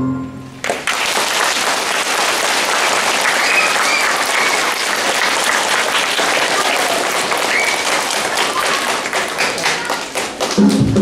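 Audience applause, with a few voices calling out, starting about a second in after the music ends. Near the end it dies down as accompaniment music for the next song starts.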